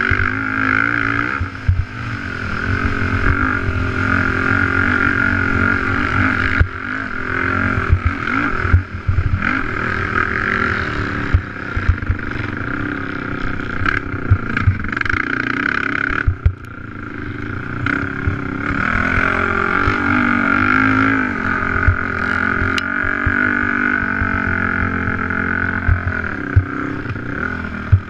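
Race ATV engine heard onboard, running hard at high revs, dropping off briefly several times as the throttle is let off and picking back up, with frequent short thumps.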